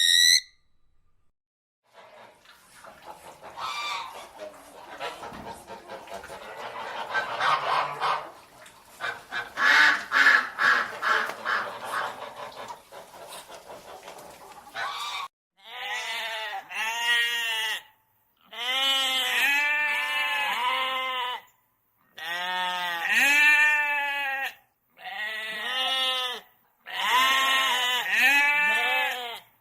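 Geese honking together in a dense, overlapping chorus for about thirteen seconds, then a goat bleating in five bouts of wavering calls with short pauses between them.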